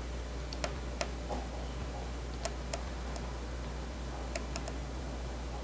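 A handful of faint, irregularly spaced ticks over a steady low hum.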